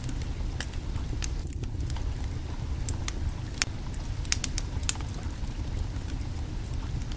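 Wood fire crackling under a cooking pot: irregular sharp pops and ticks, a few a second, over a steady low rumble.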